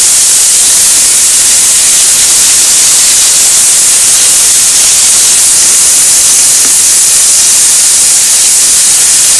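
Chicken thigh and potatoes sizzling in a hot wok while being stir-fried: a loud, steady, high hiss.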